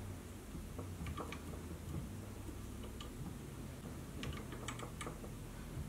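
Scattered faint clicks as paracord is worked through a tight knot with a paracord needle, over a low steady hum.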